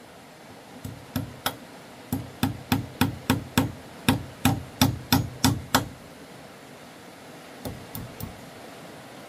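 Repeated hammering: about fifteen sharp blows, roughly three a second, over some five seconds, then three lighter blows near the end.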